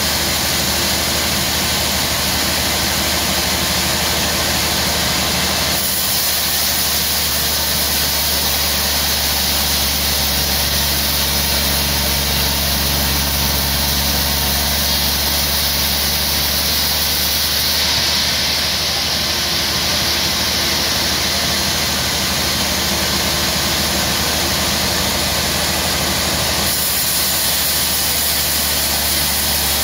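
Large sawmill band saw running and cutting lengthwise through a log: a steady, loud machine noise of blade and motor. The sound turns brighter and hissier about six seconds in and eases back near the end.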